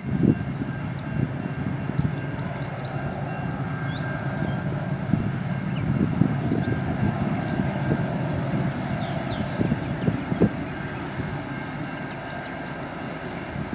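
Low, steady rumble of a distant Norfolk Southern freight train approaching, with uneven gusts buffeting the microphone and faint high chirps above it.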